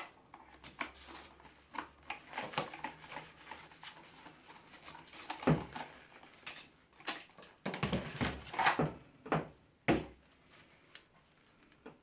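Irregular clicks, knocks and clunks of plastic and metal fan parts being handled and pulled apart during a teardown, the loudest knocks about five and a half, eight and a half and ten seconds in.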